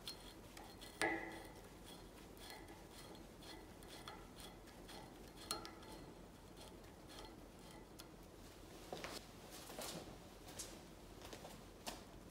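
Small metallic clicks and scrapes of a steel pick working at the rusty worm screw of a Bahco alligator adjustable wrench held in a vise, with a sharper clink about a second in and a cluster of clinks near the end.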